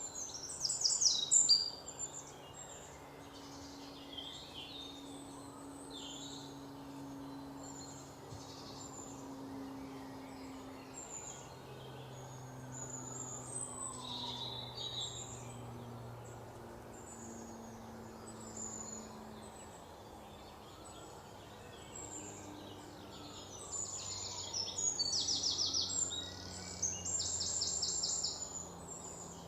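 Many birds chirping and calling in a forest chorus, with loud rapid trills about a second in and again near the end, over a faint steady low hum.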